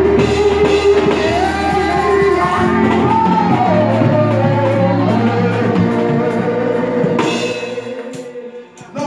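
Gospel worship music: voices singing over a band with drum kit and steady bass notes, fading away near the end.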